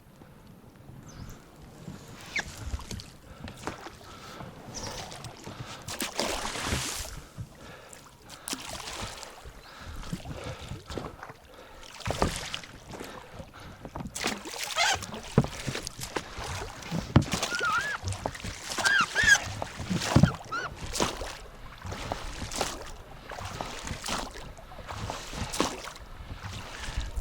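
Ducks quacking: a run of short calls about halfway through, over rustling and knocking.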